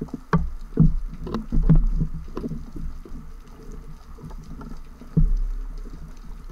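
Underwater handling noise from spearfishing gear: irregular clicks and knocks against the speargun carrying the camera, over a low rumble of water moving past it. Several heavier thumps come in the first two seconds and another about five seconds in.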